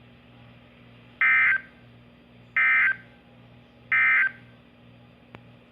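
Three short bursts of electronic data tones, about a second apart, from a NOAA Weather Radio broadcast: the Emergency Alert System's SAME end-of-message code, marking the close of the alert.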